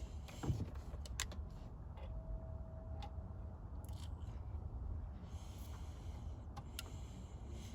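A few light, sharp clicks and handling noises over a low, steady hum.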